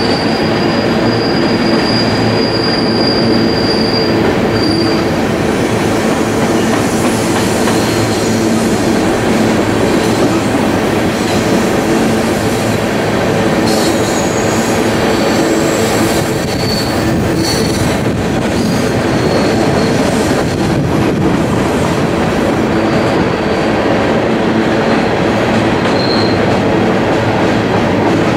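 Freight cars rolling past: coal train hopper cars and a double-stack container train, with the steady rumble of steel wheels on rail. A thin high wheel squeal sounds through the first few seconds and comes back in short bits later on.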